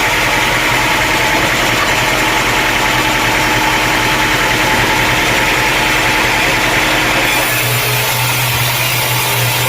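Sawmill engine running steadily. About seven seconds in, its sound shifts to a deeper, stronger hum.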